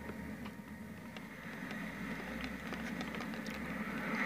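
Num Noms Silly Shake Maker toy mixing a blend in its plastic cup: a faint, steady low rumble with small scattered clicks.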